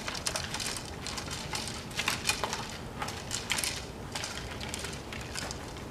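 Footsteps crunching on paving and gravel, an irregular scatter of short clicks and crunches that thins out toward the end.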